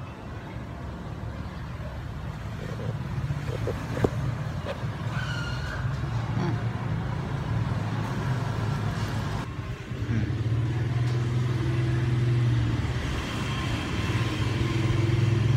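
Kitten purring steadily while being stroked, a low rapid rumble that grows louder as the kitten comes close to the microphone, with a brief break just before the middle. A sharp click sounds about four seconds in.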